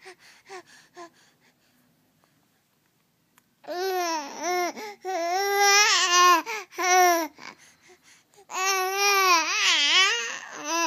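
Infant babbling and experimenting with his voice: a few short sounds, a pause of about two seconds, then two long, high-pitched drawn-out vocalizations whose pitch wavers and swoops up and down.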